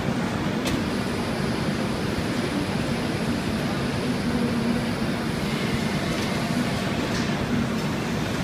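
Steady machine noise of a glass factory hall, from its furnaces and ventilation, with a faint low hum and a couple of light clicks.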